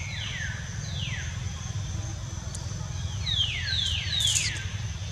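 A series of high whistled animal calls, each sliding down in pitch: one at the start, another about a second in, then four in quick succession in the second half. A steady low rumble runs underneath.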